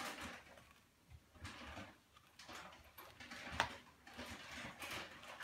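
Dog sounds: irregular short, breathy bursts of noise, with one sharp click about three and a half seconds in.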